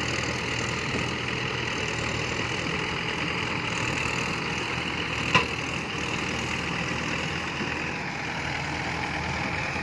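Diesel engines of a Massey Ferguson and a Mahindra tractor running steadily, with one sharp click about five seconds in.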